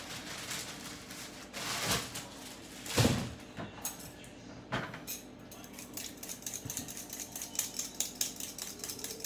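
Hand peeler scraping the skin off a raw potato in quick, repeated strokes, several a second, starting about halfway through. Before that, a couple of louder swishes as a potato is handled in a bowl of water, about two and three seconds in.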